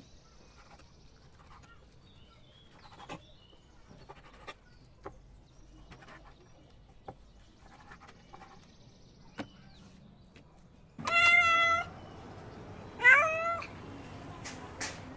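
A knife chops raw meat on a wooden cutting board in a few soft, scattered knocks. Then a domestic cat meows loudly twice, about two seconds apart, the second meow bending down and up in pitch.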